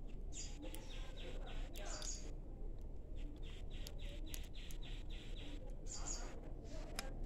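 Small bird chirping in quick runs of short repeated notes, about four or five a second, with a few higher calls in between, over a steady low background noise.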